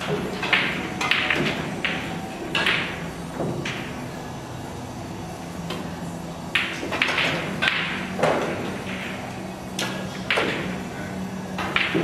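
Pool balls clicking against each other and cue tips striking balls, heard as scattered, irregular sharp clicks with short echoing tails, over a steady low hum.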